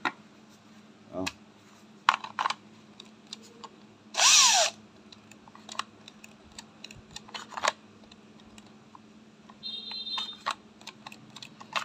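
A cordless drill is triggered once for about half a second, about four seconds in, spinning up and winding down. Plastic clicks and knocks come from battery packs and tools being handled, and a short high tone sounds near the end.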